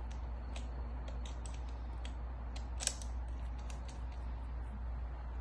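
Scattered small clicks and taps of a joystick and its holder parts being handled and fitted, with one sharper click about three seconds in.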